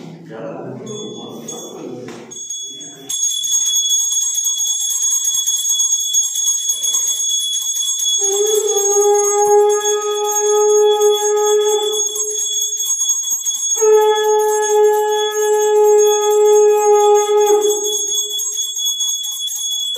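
A hand bell rung continuously for aarti from about three seconds in, joined by two long conch-shell blasts of about four seconds each, the first starting about eight seconds in and the second about fourteen.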